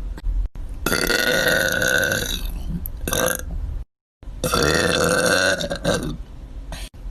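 A young woman burping: one long burp of about three seconds, then, after a brief cut, another of about two seconds and a short one near the end.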